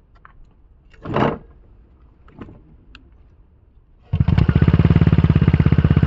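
A brief rustle and thump about a second in, then the Aprilia SR GT 125 scooter's single-cylinder four-stroke engine starts abruptly about four seconds in and runs at an even idle through an aftermarket M-style R-tech carbon exhaust with its dB killer fitted.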